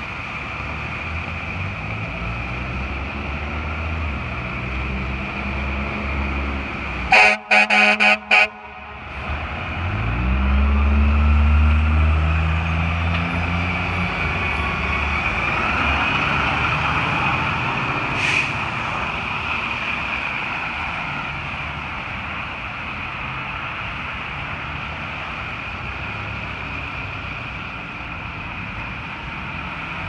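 Fire department tiller ladder truck's diesel engine pulling out of the station, then a quick run of about four heavy air horn blasts about seven seconds in. The engine then revs up loudly as the truck accelerates past and gradually fades as it drives away.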